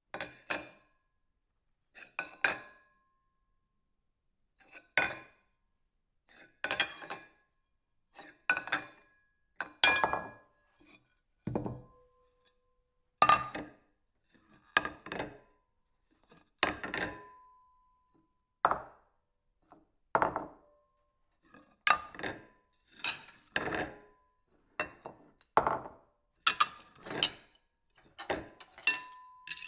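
Ceramic plate clinking and knocking: a long series of separate sharp hits with short pauses between them, several leaving a brief ringing tone. The hits come quicker in the last few seconds.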